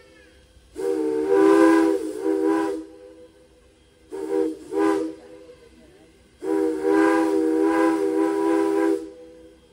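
Steam locomotive whistle blowing a chord of several notes: a long blast with a brief dip near its end, two short toots, then a long blast of about two and a half seconds.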